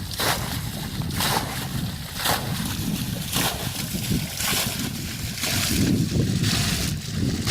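Water sloshing, with a short splashing swish about once a second over a low rumble.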